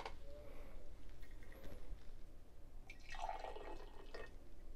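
Brewed coffee poured from a glass server into a small glass: a short, quiet trickle of liquid starting about three seconds in.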